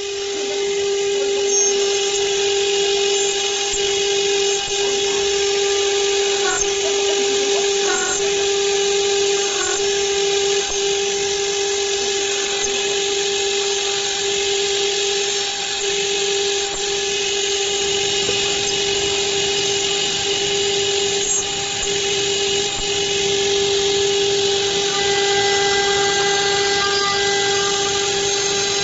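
A CNC router's spindle running at a steady high-pitched whine as its end mill cuts a clamped metal plate, with a constant hiss of cutting under the tone. Its pitch shifts slightly near the end.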